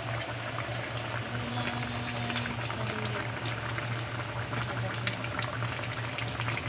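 Pot of soup with leafy greens at a rolling boil: a steady bubbling with many small pops, over a low steady hum.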